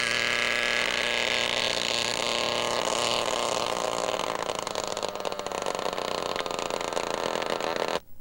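Radio-controlled model helicopter's engine and rotor running with a high whine as the craft hovers and sets down. After a few seconds the sound turns to a rougher, rapid pulsing as it sits on the ground. The sound cuts off suddenly near the end.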